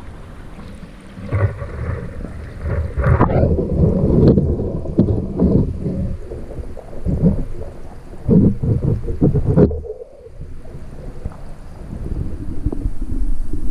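Stream water churning around a GoPro in its waterproof housing at the waterline. It makes a muffled, low rumbling and gurgling that swells and fades in uneven surges, dropping away sharply for a moment about ten seconds in.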